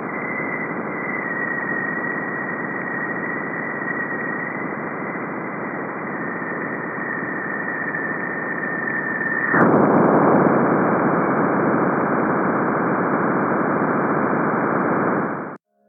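NASA's sonification of Juno spacecraft measurements of Jupiter's bow shock, the region where the solar wind is slowed and heated as it meets Jupiter's magnetosphere. A steady roar of hiss with a thin high tone slowly sinking through it, then about ten seconds in a sudden jump to a louder, explosive noise, which cuts off abruptly just before the end.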